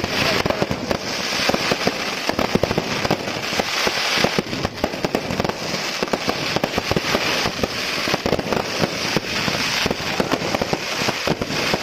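Fireworks display: a dense, unbroken run of bangs, pops and crackling from bursting shells and firecrackers over a steady hiss of sparks.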